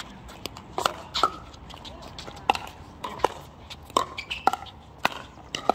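Pickleball paddles striking a hollow plastic pickleball in a fast volley exchange: about eight sharp pocks, roughly one every half second to second.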